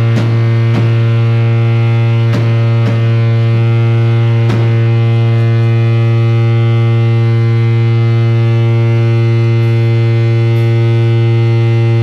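Loud, steady drone from a distorted electric guitar rig, a single low pitch held without change, with a few sharp clicks in the first few seconds.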